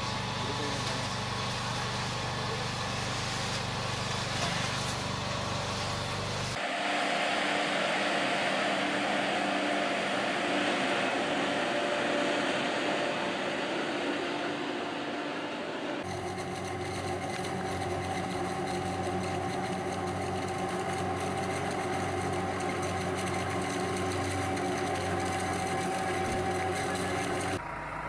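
Harvesting machinery running steadily, the engine and working parts making a continuous hum. The sound changes abruptly about six seconds in and again about halfway through as different harvesters take over, one of them a root-crop harvester's elevator carrying its crop.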